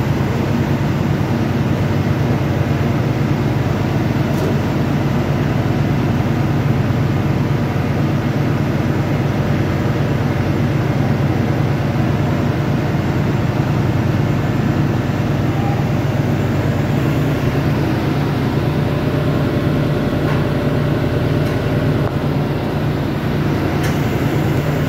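Loud, steady machinery drone with a deep hum and a few faint constant tones above it, typical of a ship's engine room with diesel machinery running.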